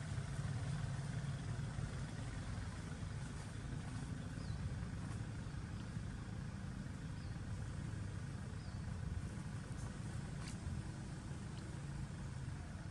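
Steady low rumble of outdoor background noise, with a few faint, short, high chirps and a faint click near the end.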